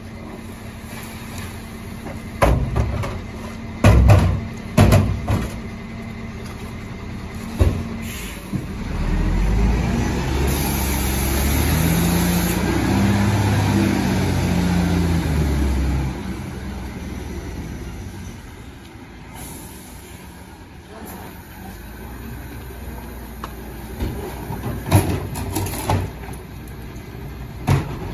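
Rear-loader garbage truck with a Garwood compactor body: several hard knocks as wheelie bins are banged against the hopper and emptied. Then the diesel engine revs up and runs loud for about seven seconds before settling back to idle, with a few more bin knocks near the end.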